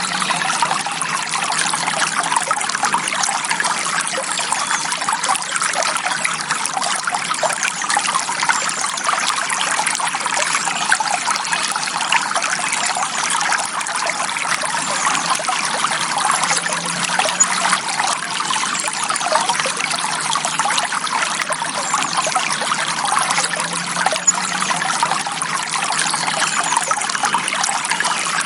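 Small forest stream trickling and splashing over rocks, a steady bright babble of water.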